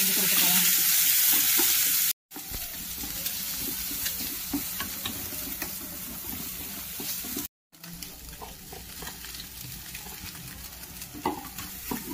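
Egg fried rice being fried in a kadai and stirred with a spatula. The sizzle is loudest for the first two seconds, then quieter, with scattered clicks and scrapes of the spatula against the pan. It breaks off completely twice for a moment.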